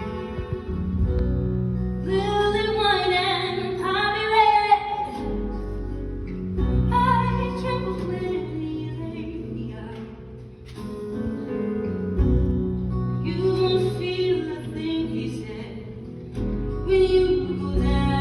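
Musical-theatre song performed live: a woman sings slow, held phrases with vibrato over a band's accompaniment with steady low bass notes.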